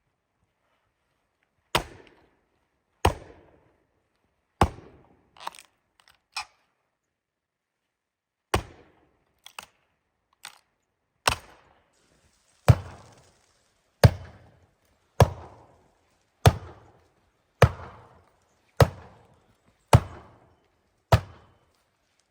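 Wood being chopped with sharp, single blows, about seventeen in all: irregular and partly lighter at first, then a steady stroke roughly every second and a bit in the second half.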